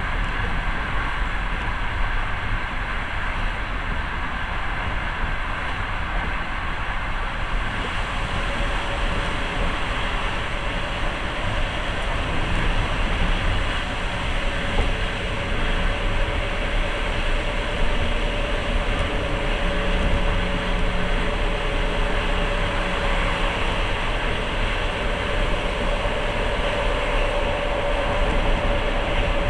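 Passenger train running steadily, heard from inside the carriage: an even rumble of wheels on the rails, with a steady whine coming in about eight seconds in.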